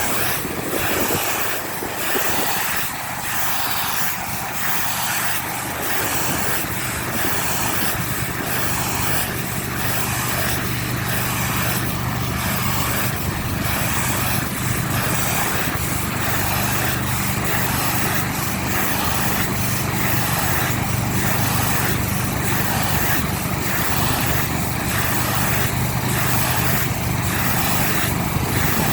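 Pressure washer running: a steady engine hum under the continuous hiss of the high-pressure water spray, the hiss flickering as the spray moves.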